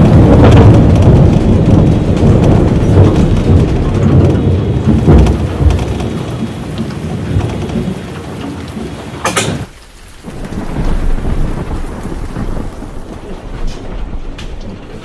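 Loud thunder rumbling at the start and slowly dying away over several seconds, with steady rain falling on wet pavement.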